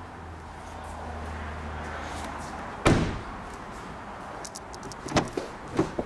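Volkswagen Tiguan car door shut with one loud, solid slam about halfway through, followed near the end by two lighter clunks as the rear door is handled and opened. A low steady hum fades out just before the slam.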